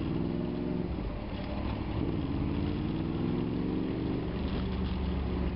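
Honda VFR motorcycle's V4 engine running while riding in traffic. Its pitch dips about a second in, then climbs steadily over the next couple of seconds as the revs rise.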